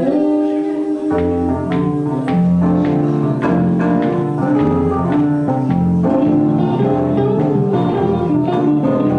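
Live instrumental music from electric guitar and keyboard, played over a repeating bass line.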